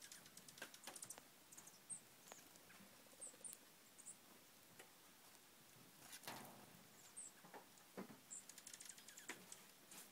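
Faint, irregular crunching and clicking of gravel, with a few very faint, very high chirps.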